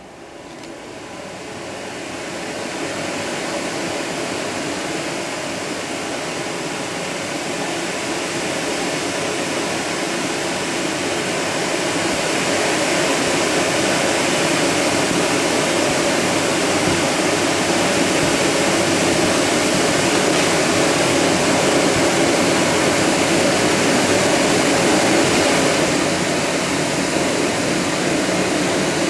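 Set-piece firework fountains spraying sparks: a steady hissing roar that swells over the first few seconds and then holds.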